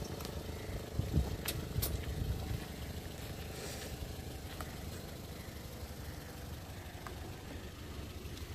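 Toyota Corolla sedan driving along a road: a steady low engine and tyre hum, with a few faint clicks early on.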